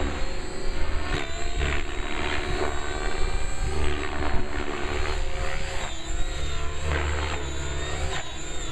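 Compass 6HV electric radio-controlled helicopter in flight, its rotor and motor sound rising and falling as it manoeuvres.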